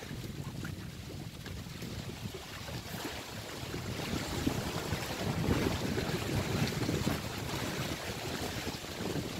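Small sea waves washing in and splashing against shoreline boulders, growing louder about four seconds in, with wind buffeting the microphone.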